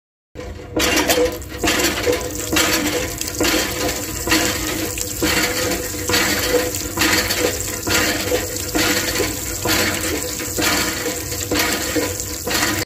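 Miniature water pump running, water splashing out in a regular pulse, about three spurts every two seconds.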